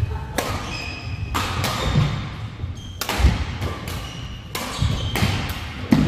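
Badminton doubles rally: rackets striking the shuttlecock in a string of sharp hits, roughly one every half second to second, with the thuds of players' feet on the court floor.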